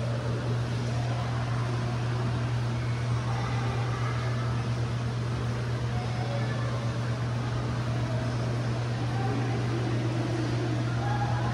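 Steady low mechanical hum, with a faint murmur of distant voices over it.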